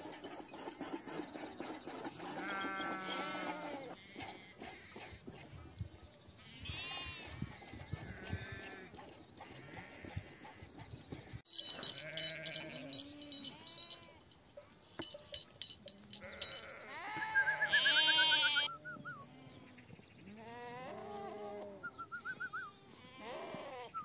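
A flock of sheep bleating, many separate calls overlapping, with one long loud bleat about two-thirds of the way through. A few sharp clinks in the middle.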